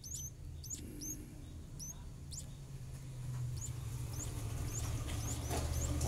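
Nestlings cheeping: thin, high, short calls repeating about twice a second, over a low rumble that grows louder toward the end.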